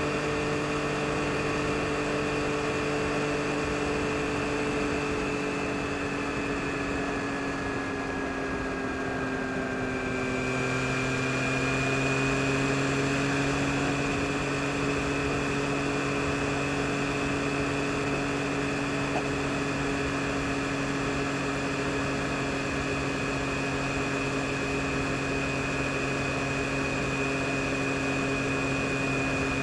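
Yamaha MT-09 SP's 890 cc inline-three engine running steadily under way, with a haze of wind and road noise. About ten seconds in, the engine note drops a little and settles into a new steady pitch.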